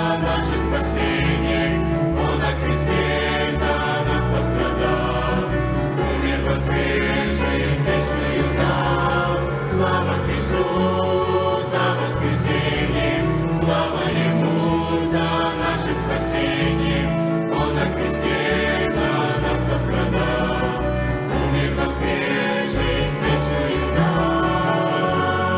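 Youth choir singing a Christian hymn in several parts, held notes over an accompaniment with a steady bass line.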